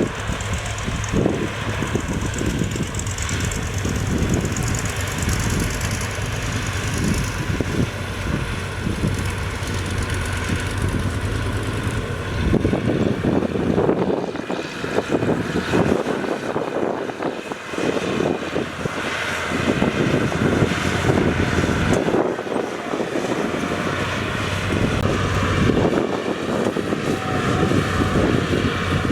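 Heavy diesel machinery running, with a steady low engine drone that drops away around the middle and comes back near the end.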